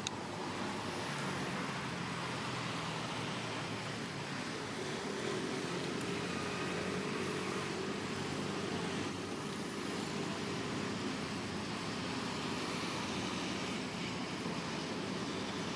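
Steady outdoor background noise with a low engine hum, like distant road traffic.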